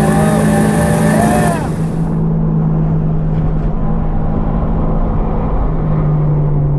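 In-cabin sound of a 2022 Toyota GR86's flat-four engine running at a steady pitch at high speed, with wind and road hiss. About two seconds in the sound turns duller as the hiss drops away, and the engine note carries on steady.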